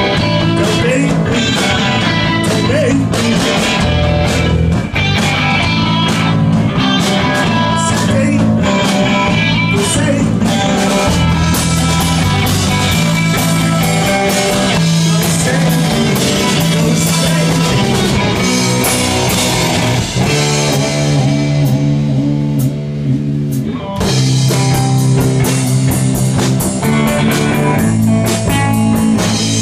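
Rock band playing live: electric guitar, electric bass and drum kit. Around twenty seconds in, the cymbals and drums fall away for a few seconds, leaving guitar and bass, before the full band comes back in.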